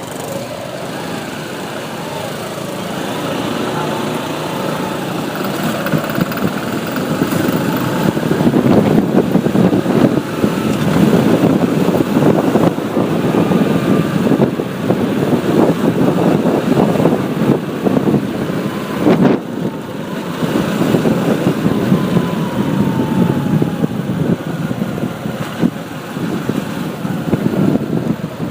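A motorcycle riding through road traffic: its engine and road noise run steadily, with other vehicles passing, and the sound grows louder over the first several seconds.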